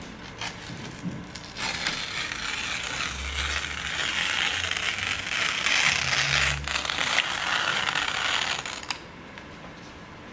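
A sheet of printed paper being torn slowly by hand: a long ripping sound that starts about a second and a half in, grows louder, and stops suddenly near the end.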